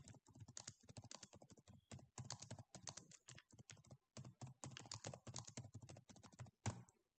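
Faint, fast typing on a computer keyboard: rapid key clicks in quick runs with brief pauses, and one louder keystroke near the end.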